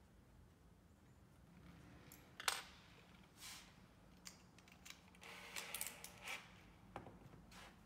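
Small handling clicks of a cordless drill and a metal driver bit: one sharp click about two and a half seconds in, then a run of light clicks and rattles as the bit is fitted into the drill's chuck. The drill motor does not run.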